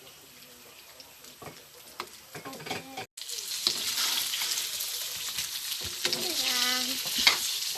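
Faint clicks for about three seconds, then after a sudden cut a loud, steady sizzling with crackles: a stovetop pizza frying in a pan.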